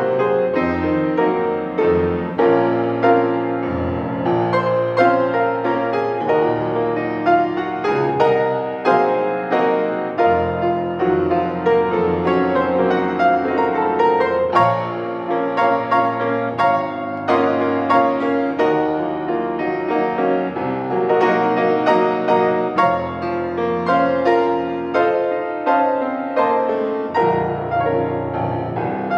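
Grand piano played solo: a steady, flowing run of notes with chords ringing under the melody.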